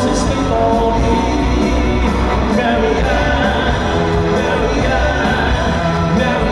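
Pop-rock song played by a band, loud and continuous with a steady beat, with singing over it.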